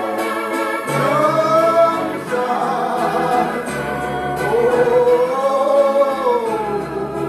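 Gospel singing by a choir or congregation, backed by an organ, with long held notes that slide between pitches.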